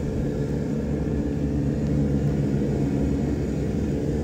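Airbus A320-214's CFM56 turbofan engines giving a steady low rumble as the airliner climbs out after takeoff.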